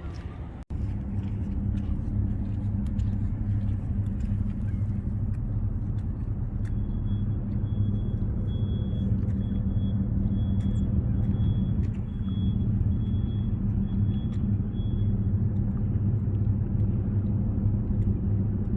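A low, steady engine drone with a hum. A faint, quick series of short high beeps or chirps sounds through the middle for several seconds.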